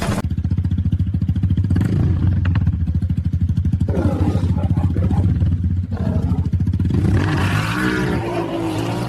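Motorcycle engine running with a rapid, steady putter. About seven seconds in the engine note drops away, leaving a hiss with some wavering tones.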